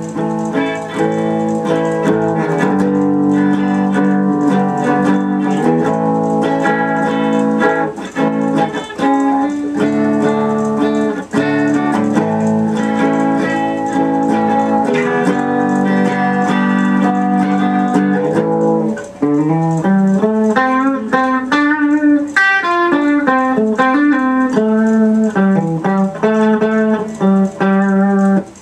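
Aria Pro II PE Elite electric guitar on its bridge pickup, played clean through a small tube amp with no effects: held, ringing chords, then about 19 seconds in a run of quicker single-note melody lines.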